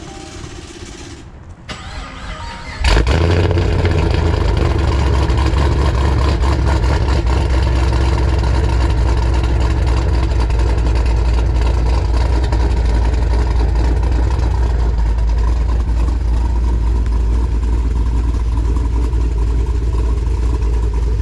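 2019 Dodge Challenger R/T Scat Pack's 392 Hemi V8, fitted with JBA long-tube headers, starting about three seconds in. It then runs at a loud, steady idle with a deep exhaust rumble.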